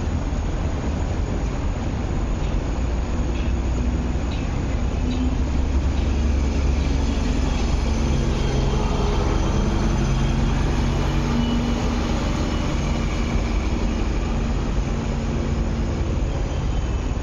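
Steady rumble of road traffic, with double-decker buses and cars, mixed with an East Rail Line electric train running on the tracks. A few faint engine tones rise and fall over the middle of the stretch.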